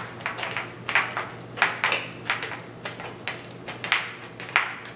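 A wooden popsicle stick scraping along a knife cut in EPP foam, in quick repeated strokes of about two a second, opening the groove for a wing spar.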